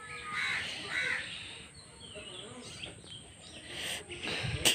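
Birds calling, a few harsh calls in the first second or so and fainter ones after, with a single sharp click right at the end.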